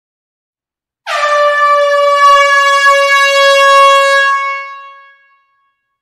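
Air horn giving one long, steady blast in a hall. It starts about a second in and fades away a little after the fourth second.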